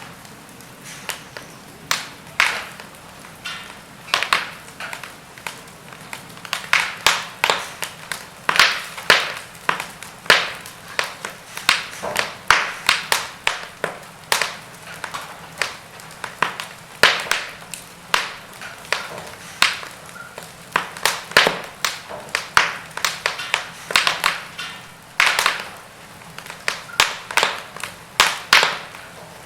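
Wood fire in a fireplace crackling, with irregular sharp pops and snaps from the burning logs over a soft hiss of flame.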